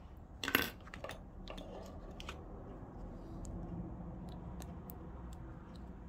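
Small metallic clicks and a brief clatter from a metal zipper and pliers handled while the old slider is worked off the zip. The loudest rattle comes about half a second in, followed by scattered fainter ticks.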